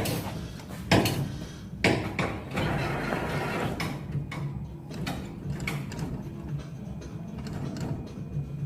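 Claw machine mechanism working: a steady low hum with sharp knocks about one and two seconds in, then lighter clicks, as the claw and gantry move.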